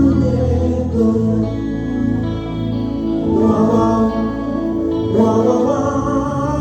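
Live band music with singing: a sound check by an mbalax band, sustained chords under a lead vocal line.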